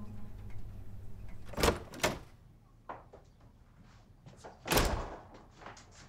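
A door opening and closing: a couple of thuds, the loudest about five seconds in, followed by light footsteps.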